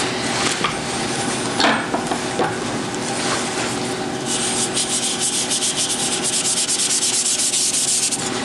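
A stiff brush scrubbing and scratching through printing ink on a monotype plate. Scattered strokes at first, then from about halfway a fast, steady run of short scrubbing strokes that stops just before the end.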